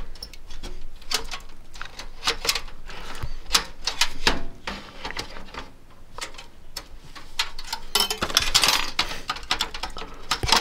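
Irregular clicks, taps and scrapes of a graphics card and its metal bracket being handled and pushed into a computer case's expansion slot, with a longer scraping, rustling stretch near the end.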